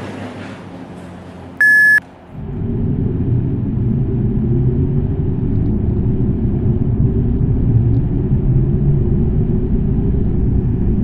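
A single short electronic beep from a lift's control panel, then a steady low rumble as the lift starts and travels downward.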